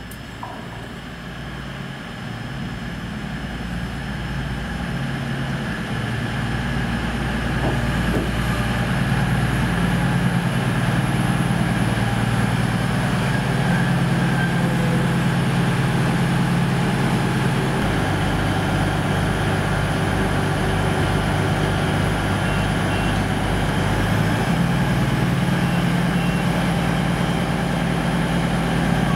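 East Midlands Trains Class 222 Meridian diesel multiple unit pulling into the platform and then standing with its underfloor Cummins diesel engines idling. The engine sound grows louder over the first several seconds as the train draws up, then holds steady, its low note changing about two-thirds of the way through.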